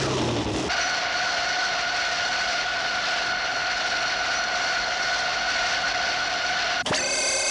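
Cartoon jet-engine sound effect for the Brain Condor: a steady rushing hiss with a high, even whine, changing near the end to a brighter, buzzier tone.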